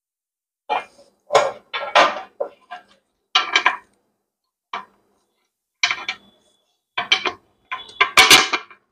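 Hard plastic parts being handled and knocked together: a run of irregular clattering knocks and rattles, loudest near the end.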